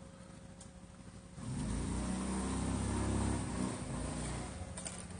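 A motor vehicle passing on the road, its engine swelling about a second and a half in and fading away over the next few seconds.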